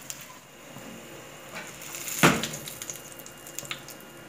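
Hot oil sizzling steadily in a frying pan around a breaded piece of beef tripe, with one loud sharp crack about two seconds in and a few light clicks near the end as the piece is lifted out.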